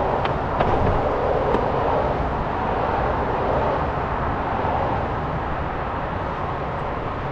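Steady outdoor rumble and hiss, with a few faint clicks in the first second and a half.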